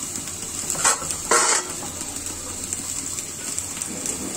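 Rohu fish frying in oil in a covered pan: a steady sizzle, with two short sharp noises about a second in and again half a second later.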